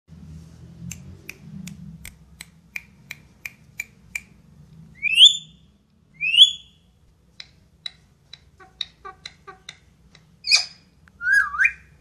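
Indian ringneck parakeet calling: a run of sharp clicks about three a second, then two loud rising whistles, more scattered clicks, and near the end a loud squawk and a wavering whistle.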